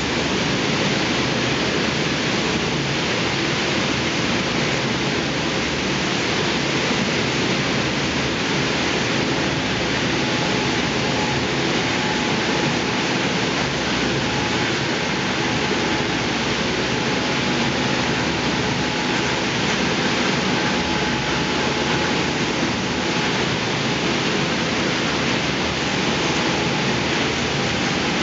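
Trefimet UltraOxibar oxygen thermal lance burning through the slag tap hole of a copper furnace: a steady, loud hissing rush of oxygen-fed burning metal that does not let up.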